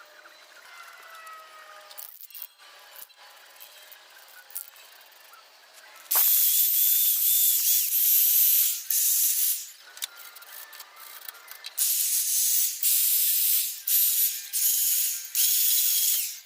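Aerosol spray paint can spraying in several hissing spells of one to a few seconds each, starting about six seconds in, as rusted car parts are painted. Before that there is only a faint hiss.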